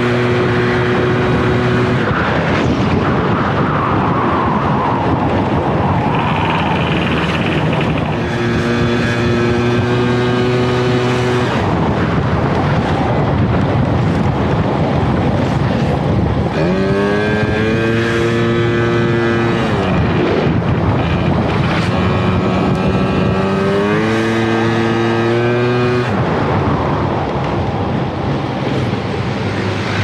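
Yamaha Jog ZR Evolution scooter engine running while the scooter is ridden, under steady noise from wind and the road. The engine note holds steady in stretches and fades back into the noise between them, and once, about halfway through, it rises and falls in pitch.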